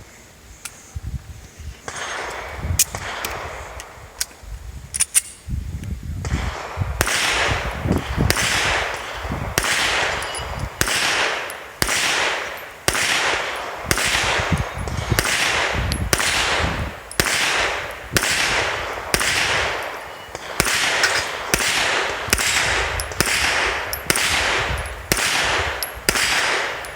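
Shots from a Springfield XD(M) 5.25 9mm pistol: a few scattered reports, then from about seven seconds in a steady string of shots at roughly one a second, each trailing off in a long echo.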